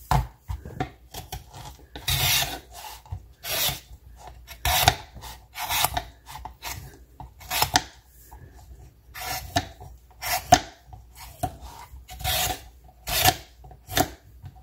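Y-shaped vegetable peeler scraping the tough dark green skin off watermelon rind against a wooden cutting board: repeated rasping strokes at an uneven pace, about one or two a second.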